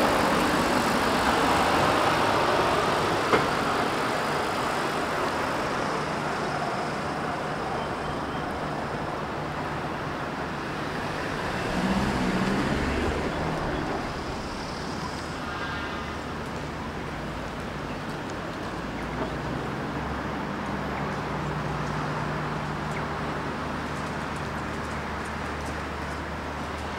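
Road traffic noise: a steady hum of passing cars and buses, louder over the first few seconds and easing off, with one sharp knock about three seconds in.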